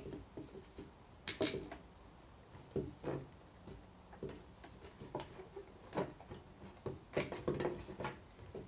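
Parts of a flat-pack display riser knocking and clacking as slotted supports are slid into the side pieces: a series of irregular knocks, the loudest about a second and a half in and again around seven seconds in.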